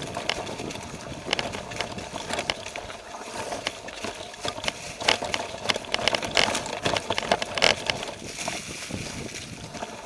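Mountain bike rolling downhill over a leaf-covered dirt trail: tyres crunching through dry leaves, with frequent irregular clicks and rattles from the bike.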